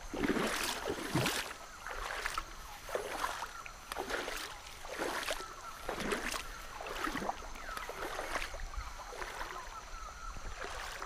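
Footsteps wading through a shallow river. Each step sloshes and splashes the water, about once a second.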